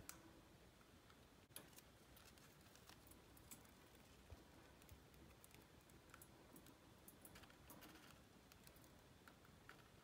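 Faint, irregular clicks of a budgerigar's beak pecking in a stainless steel food bowl, a few ticks a second over near silence.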